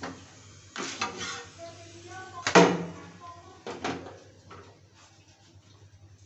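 Metal knocks and clatter from a steel spatula on an iron tawa as a cooked paratha is lifted off. There are a few sharp knocks in the first four seconds, the loudest about two and a half seconds in, with faint voices in the background.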